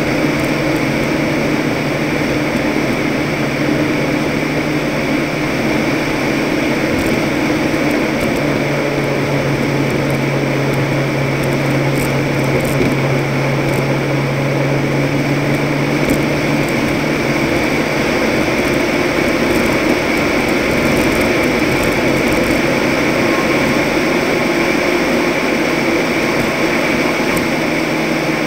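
Toyota race truck driving at speed: its engine runs steadily under the hiss of tyre and road noise. The engine's low tone fades and shifts about two-thirds of the way through, then comes back near the end.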